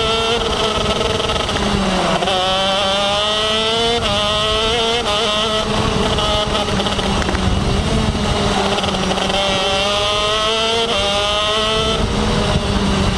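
KZ2 shifter kart's 125cc two-stroke engine heard onboard under racing load, its pitch climbing as it revs and dropping sharply several times at gear changes and lifts.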